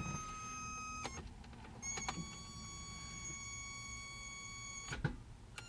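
BMW E21 320i's electric fuel pump whining steadily with the key on. It cuts off with a click about a second in, clicks back on under its relay just under a second later and runs until another click near the end, while the starter fails to crank the engine.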